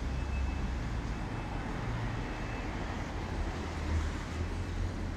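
Steady city street traffic noise: cars running past on the road, with a low rumble.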